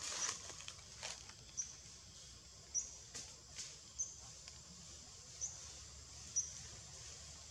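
Short, high chirps from a small animal, about six of them at irregular gaps of one to one and a half seconds, each a quick upward flick. A few faint clicks and crackles fall between them over a soft outdoor hiss.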